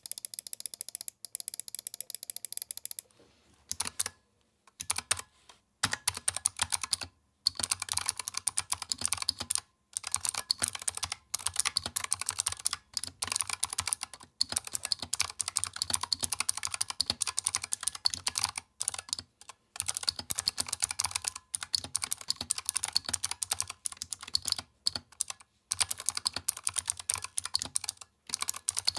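Razer Huntsman Mini keyboard with Razer optical clicky switches and PBT doubleshot keycaps being typed on. Fast runs of sharp, clicky keystrokes are broken by brief pauses.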